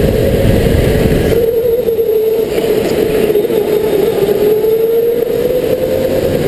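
Electric go-kart motor whining as the kart laps, its pitch sagging over the first few seconds as the kart slows through a corner and climbing again near the end as it speeds back up, over a low rushing noise.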